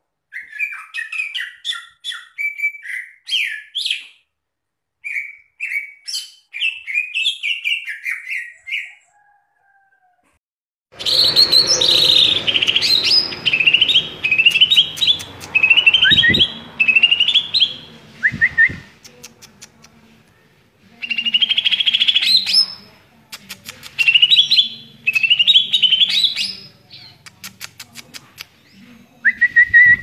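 Cucak ijo (green leafbird) singing in rapid bursts of varied chirps and whistles, with a short break about nine seconds in. After the break the song comes back louder over a low background hum, ending in quick ticking notes.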